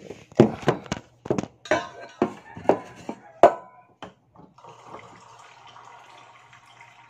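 Several sharp knocks and clatter, then, from about four and a half seconds in, cold water running steadily from the tap of a large plastic water container into a mug.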